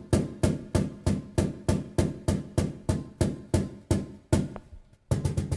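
Wooden Meinl cajón struck by hand in the middle of its front face, giving the deep bass-drum tone, in an even run of about three strikes a second. Near the end comes a quicker cluster of strikes.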